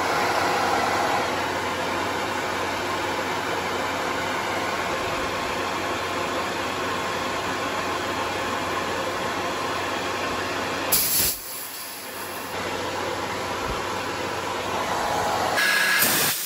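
Air Venturi high-pressure air compressor running steadily while filling a tank, with a brief sharp hiss of air about eleven seconds in, after which the motor sound drops away for a moment and comes back. Near the end the running stops and air hisses out loudly through the release valve at the base of the filter.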